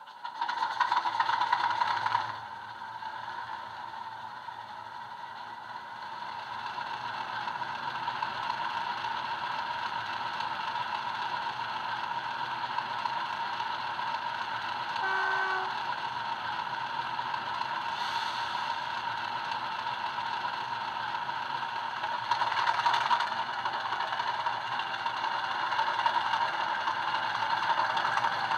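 Recorded Class 50 diesel sound from a model locomotive's DCC sound decoder, played through its small onboard speakers: the English Electric V16 engine comes in loud for the first two seconds, then settles into steady running. A short tone sounds about halfway, and the engine swells a few times and grows louder toward the end as the model pulls away.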